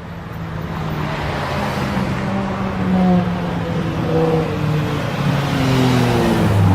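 A V10 sports car engine running hard, getting steadily louder as it approaches, then its pitch falls sharply near the end as the car goes by.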